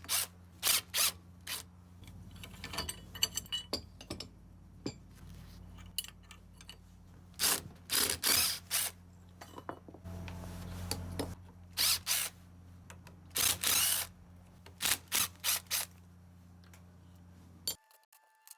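Hand tools at work taking apart a dishwasher: a string of short, sharp clicks, scrapes and rattles of metal and plastic parts, with a longer scraping stretch about halfway through, over a steady low hum. The hum and clatter stop abruptly near the end.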